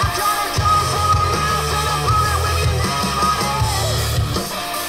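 Rock music played back through a pair of Estonia 35AC-021 three-way loudspeakers and heard in the room, with strong bass under a high wavering melody line.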